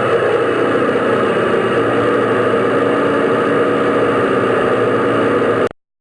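Airplane engine noise: a steady drone with a few held hum tones, which cuts off suddenly near the end.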